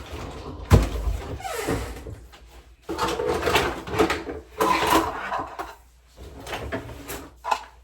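Kitchen handling noises: a sharp knock about a second in, then several bouts of rustling and clattering, like a drawer or cupboard being opened and things moved around in it.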